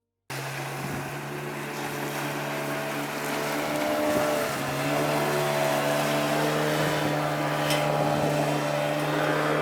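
An engine running steadily with a constant low hum and a noisy rush over it, starting abruptly just after the start.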